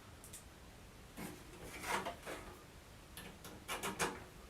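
Faint clicks, taps and rustling of hands handling computer parts inside a PC case, a few separate small knocks with a quick cluster near the end.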